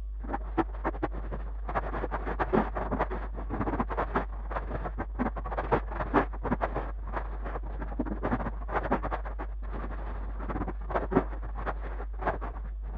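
Rapid, irregular knocks, clicks and scrapes packed closely together over a steady low hum.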